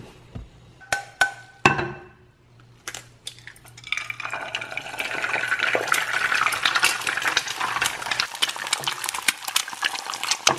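A few clinks and knocks of kitchenware, two of them ringing briefly, then eggs frying in oil in a pan on a gas burner: a dense, steady sizzle that starts about four seconds in and holds.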